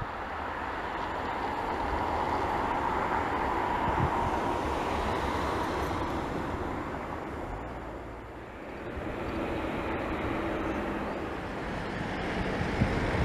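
Distant jet engine noise across an airfield: a steady rush with a faint whine, swelling over the first few seconds, dipping about eight seconds in, then building again.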